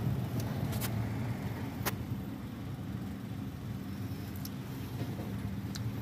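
Jeep Wrangler engine idling steadily, with a few light clicks near the start.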